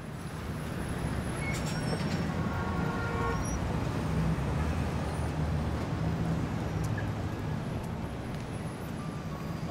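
Steady city traffic rumble, rising in level at the start, with a few faint short tones about two to three seconds in.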